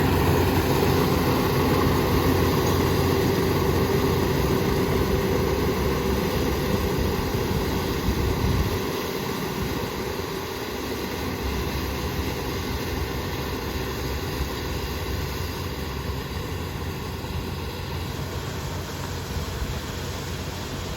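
Kubota ER470 combine harvester running with a steady diesel hum and whine while harvesting rice. About nine seconds in the low rumble drops and it carries on quieter.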